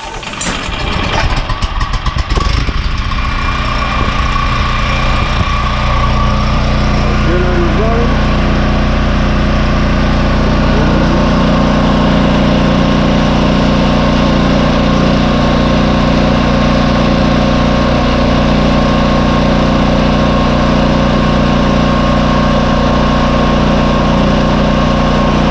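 A-iPower AP5000 portable generator's engine starting up and then running steadily at a constant speed.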